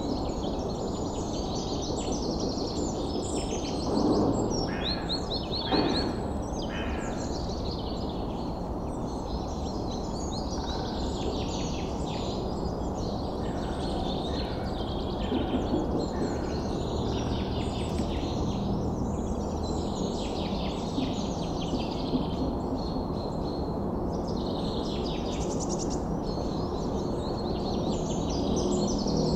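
Many birds chirping and trilling over a steady background hiss of outdoor ambience, with two louder calls about four and six seconds in.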